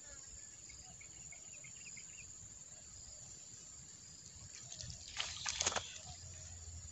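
Hooked tilapia splashing at the surface in a few quick splashes about five seconds in, as it is played on a pole rod. A steady, high insect buzz runs under it.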